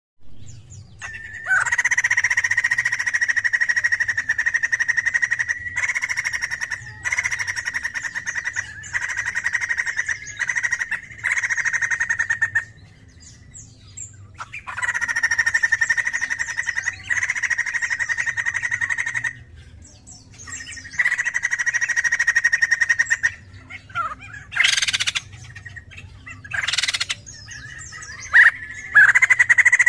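White-crested laughingthrush (poksay jambul) singing in full voice: long, fast-pulsed rattling phrases of a few seconds each, held around one pitch with brief pauses between them, then a few short separate calls near the end.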